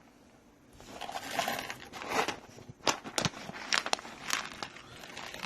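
A coffee bag rustling and crinkling as whole coffee beans are poured into a stainless steel hand grinder, the beans rattling in with many sharp clicks. It starts about a second in.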